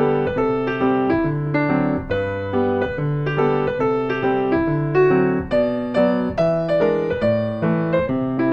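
Background music: a piano playing a steady run of notes, several a second.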